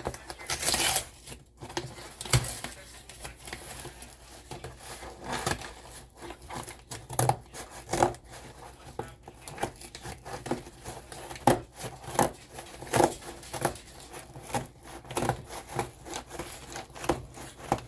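Parcel packaging being torn and crinkled open by hand: irregular ripping and rustling strokes throughout.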